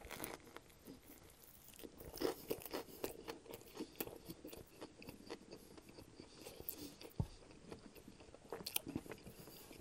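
Close-miked chewing of a mouthful of sub sandwich: soft, irregular crunches and wet mouth clicks.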